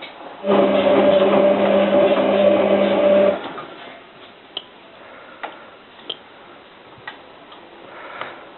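Hotpoint 9534A washing machine's drum motor running for about three seconds with a steady hum, tumbling the load while the wash water heats on a hot cotton programme, then stopping abruptly. Scattered light ticks and clicks follow.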